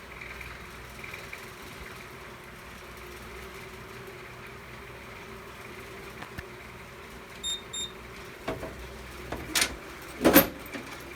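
Fire alarm control panel keypad giving two short high beeps about seven seconds in as its buttons are pressed to reset the panel, over a faint steady hum. A few knocks follow, and a louder clunk comes near the end.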